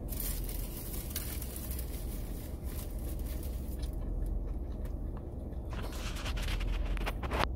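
Chewing a crunchy fried chicken sandwich, with small crackles and clicks over a steady low hum. From about six seconds in, scraping and rubbing as skin brushes against the phone's microphone.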